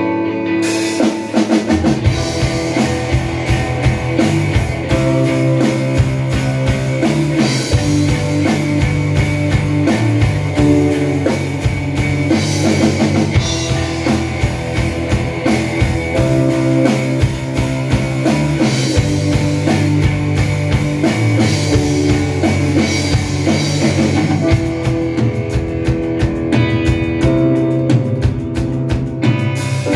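A live rock band plays an instrumental passage on electric guitars, bass guitar and drum kit. The drums and bass come in about a second or two in, and the cymbals drop out briefly near the end.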